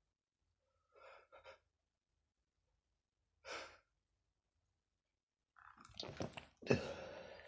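A man with a stuffy nose sniffs twice, then breathes in once. He builds up in a few quick gasping catches and sneezes loudly near the end.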